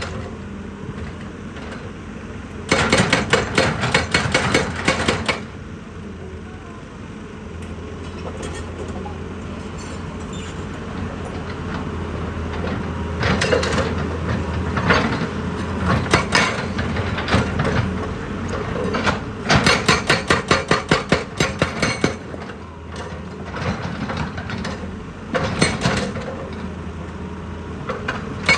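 Heavy excavator's diesel engine running steadily, broken by several bursts of rapid, evenly spaced knocking on rock, each lasting a second or a few seconds.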